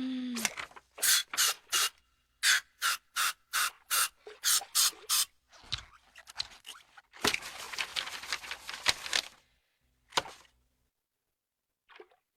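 Cartoon character coughing: a fast run of about a dozen short, dry coughs. A longer hacking stretch of about two seconds and one last cough follow.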